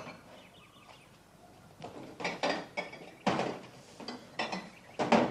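Pots and crockery clattering and knocking as someone rummages through a low kitchen cupboard. It is a quick run of short knocks and clinks, starting about two seconds in.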